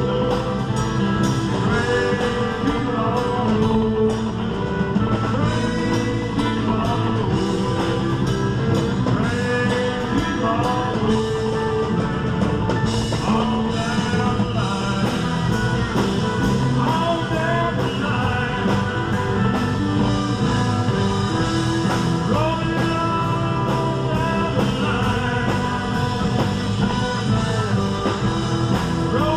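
Live rock band playing with electric and acoustic guitars, trumpet and drums, a voice singing over a steady beat.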